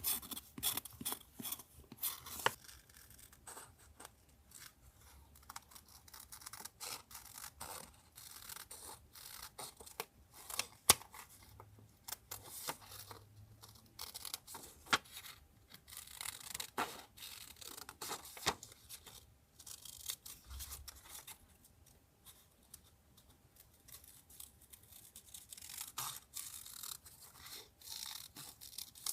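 Close-up paper crafting: paper and stickers rustling, being handled and cut, in an irregular stream of crisp crackles and small ticks, with one sharper tap about a third of the way through.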